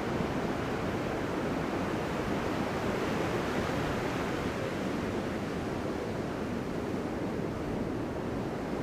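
Ocean surf on a beach break: a steady wash of breaking waves and whitewater with no distinct single crash.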